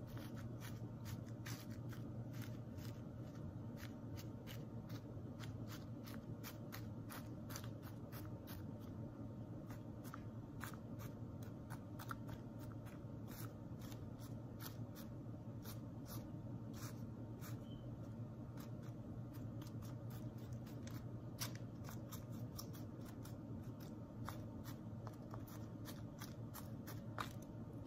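Scattered faint clicks and rustles of hands sowing seeds into plastic seed-starting trays, over a steady low hum.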